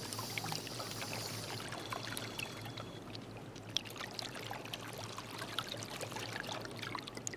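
Underwater ambience on a reef dive: a steady watery hiss and gurgle with many scattered faint clicks and crackles.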